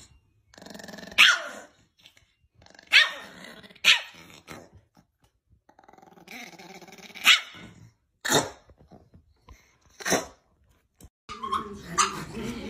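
Small dogs barking in short, sharp single barks a second or two apart, with growling in between. Near the end, a television's soundtrack comes in.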